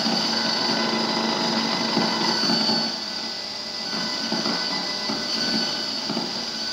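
Electrical interference picked up through a homemade coil-and-capacitor pickup and played through a speaker, with its capacitors short-circuited: a rushing hiss with several steady whining tones and a low hum. It drops somewhat in level about three seconds in, as the board is moved.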